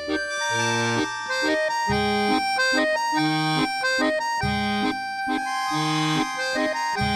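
Accordion music: a melody in held notes over a steady left-hand accompaniment that alternates bass notes and chords.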